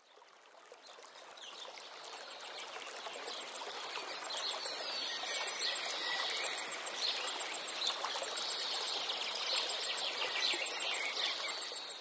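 Wetland nature ambience: running water with birds chirping, fading in over the first few seconds and fading out near the end.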